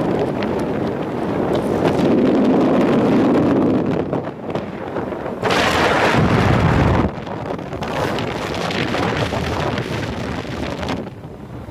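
Wind buffeting the microphone outdoors, a rumbling rush that swells into a stronger gust about five and a half seconds in and drops back after a second or so.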